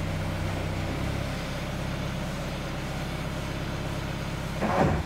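Toyota 86's flat-four engine running steadily in gear, turning its driven wheels freely while the car is raised off the ground, with a brief louder rise near the end.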